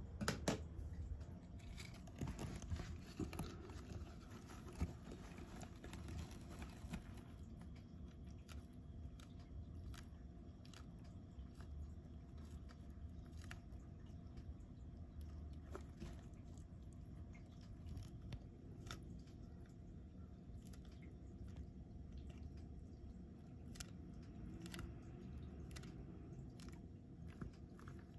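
Juvenile Greek tortoise biting and chewing a fresh komatsuna leaf: faint, crisp crunches at irregular intervals, with a louder knock right at the start.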